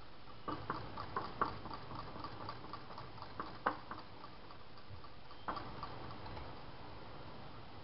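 A spoon clinking and scraping against a glass bowl as whipped cream and strawberry jelly are stirred together: irregular light clicks with a few sharper taps, for about six seconds.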